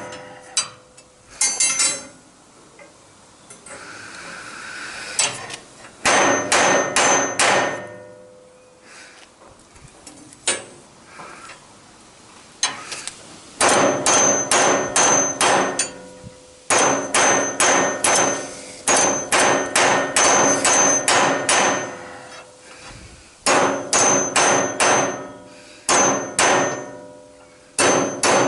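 Hammer striking metal in fast runs of blows, about four a second, each blow ringing with a bright metallic tone. Between the runs come quieter stretches of lighter, scattered knocks.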